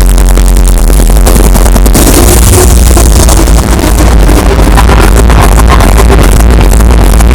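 Loud hardstyle dance music with a heavy bass.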